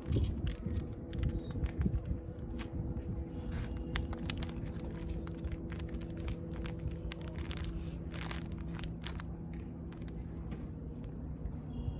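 Plastic fishing-lure packaging crinkling and clicking in the hands as it is worked open, in scattered sharp clicks that are busiest in the first couple of seconds. Wind rumbles on the microphone and a steady low hum runs underneath.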